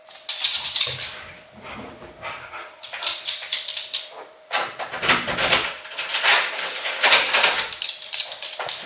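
A bunch of keys jingling as they are taken out, then a key working the front door lock and the door opening: a run of metallic clicks and rattles with a few duller knocks.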